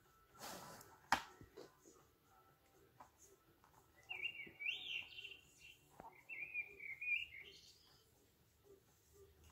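Recorded bird chirping played through the small speaker of a children's sound book, set off by pressing its 'cheep' button: two short runs of high, fluttering chirps about four and six seconds in. Near the start the board pages rustle and something clicks sharply.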